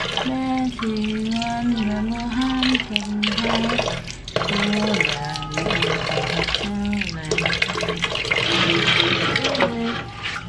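Water splashing and dripping in a steel basin as a baby monkey is washed by hand, with background music playing a slow melody over it.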